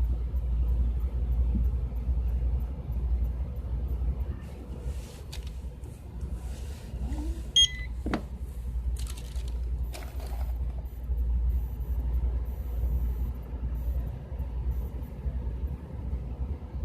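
A low steady rumble with a single short electronic beep about seven and a half seconds in, the kind a checkout register or barcode scanner gives, and faint rustling around it.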